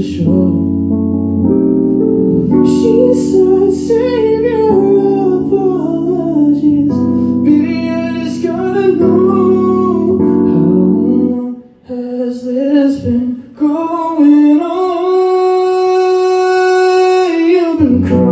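Live pop song: a man singing into a microphone over chords from a Korg Grandstage stage piano. Just past the middle the piano drops out and the voice carries on nearly alone, ending with one long held note.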